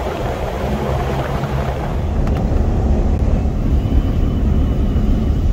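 Vehicle driving on a sealed road, heard from inside the cab: a steady low engine drone with road noise.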